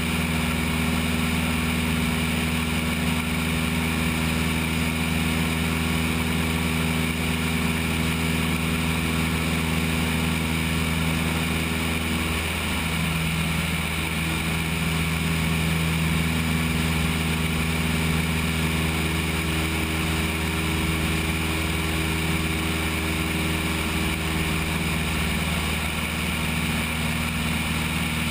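Cessna 172 engine and propeller droning steadily in flight, with rushing air, heard from the wing. The drone's pitch changes a little under halfway through.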